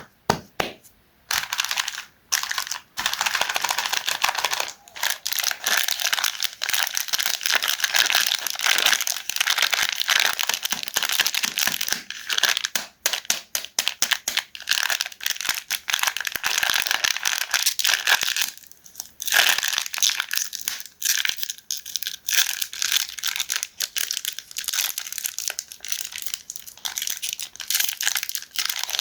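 KitKat wrapper being crinkled and torn open by hand: dense, irregular crackling with a few short pauses.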